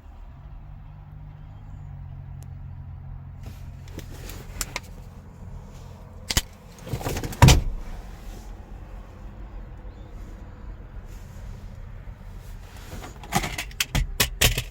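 Knocks and clicks from a car being handled, with one heavy thump about seven and a half seconds in and a quick run of sharp clicks near the end, over a steady low hum.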